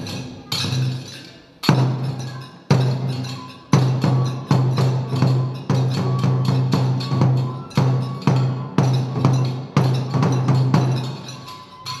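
Kagura festival music: a taiko drum beaten in a steady run of strokes, each with a ringing low note, about one a second at first and then a little quicker, over a continuous clash of hand cymbals.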